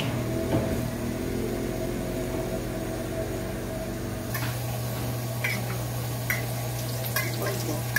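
A steady low machine hum, stronger from about four seconds in, with a few short sharp clicks and taps after that.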